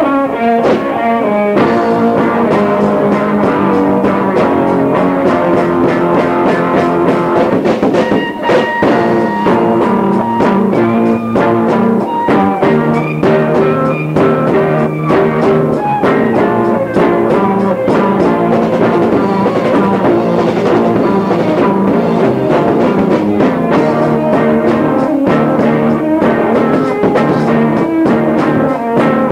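A rock band playing live with electric guitar and a drum kit, heard on a lo-fi 1970s cassette recording made on a faulty recorder from a room down the hall.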